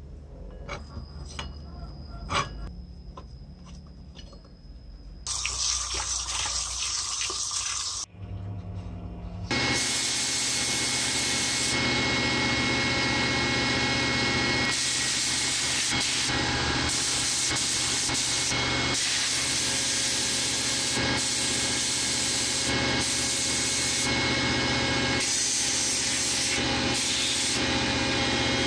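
Short scrubbing and clicking of a toothbrush on a rusty metal part in a dish of liquid. About ten seconds in, this gives way to the loud, steady hiss of a sandblaster: compressed air and abrasive blasting the metal parts inside a blast cabinet.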